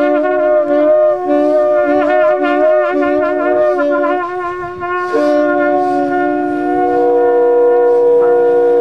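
Trumpet and saxophone playing a jazz duet: wavering, quivering long notes for the first few seconds, then both holding long steady notes from about five seconds in.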